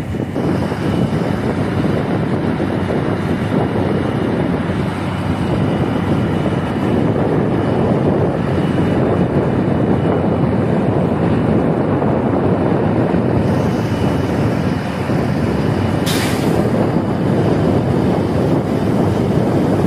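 Steady loud noise of shipyard machinery, with a faint high whine through the middle and a brief sharp hiss about sixteen seconds in.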